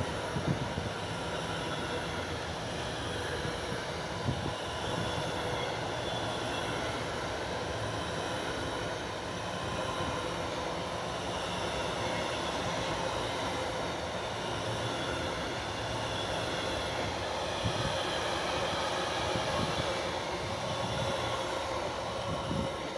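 Container freight train's loaded flat wagons rolling past at speed: a steady rumble of wheels on rail with a faint high ringing whine and a few sharp clacks, the last wagon going by near the end.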